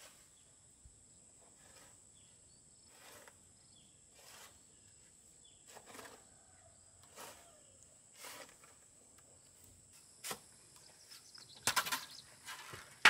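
A steady high insect drone with soft, regular strokes about once a second, and a few sharper knocks near the end.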